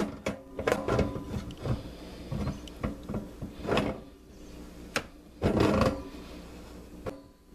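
Large-jaw pliers gripping and turning the metal locknut ring of a basket sink strainer to tighten it, with irregular clicks and scraping of the jaws against the metal.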